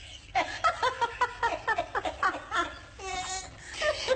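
A woman laughing in quick repeated bursts, about four a second, then a longer, strained high note of laughter about three seconds in.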